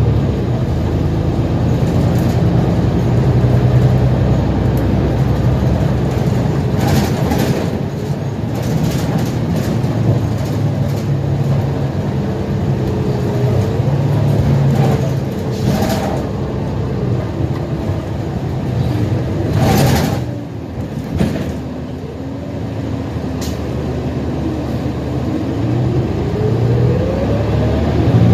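Inside a New Flyer XD60 Xcelsior articulated diesel bus on the move: a steady low drone of the engine and drivetrain, with scattered rattles and knocks, the broadest about twenty seconds in. After that the sound drops for a moment, then a tone rises in pitch near the end as the bus pulls away and speeds up.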